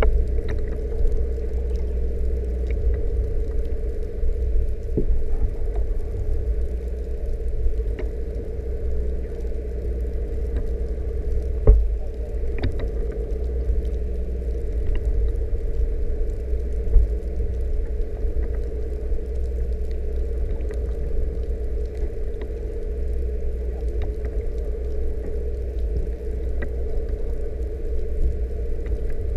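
Underwater sound picked up by a GoPro in its waterproof housing: a steady low rumble with a constant hum, scattered faint clicks, and two louder knocks about twelve and seventeen seconds in.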